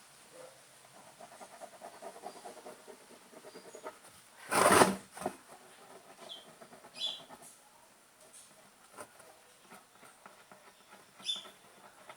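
Pen scratching on cardboard while burner circles are drawn on a toy stove, with one brief loud rustle about four and a half seconds in. A few short high chirps sound now and then.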